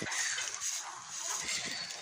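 A chorus of many frogs calling at once, a dense, steady croaking din.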